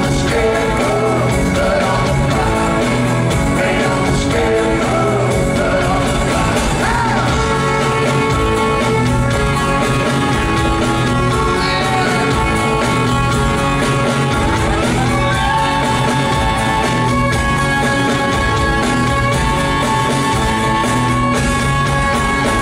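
Live rock band with electric guitars and drums playing loudly, a man singing over it in the first part; about fifteen seconds in a high note slides up and is held as the band plays on.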